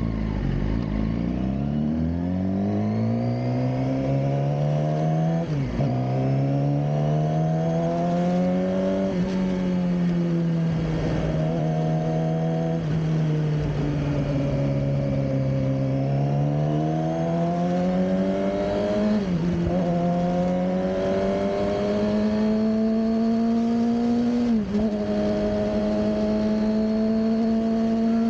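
2007 Suzuki GSX-R600's inline-four engine pulling under throttle, its pitch climbing through the gears with three quick upshifts, each a short dip before it climbs again. In the middle the revs ease down and build back up.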